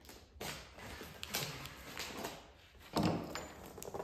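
Large cardboard shipping box being opened by hand: tape and cardboard flaps scraping and rustling in several short strokes, the loudest about three seconds in.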